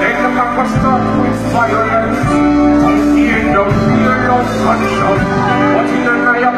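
A song with singing over guitar and other instruments, played steadily and loud.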